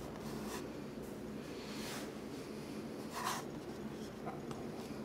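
Quiet room tone with a few soft scuffs and rustles from someone moving about with a handheld camera. The most distinct scuff comes a little past three seconds in.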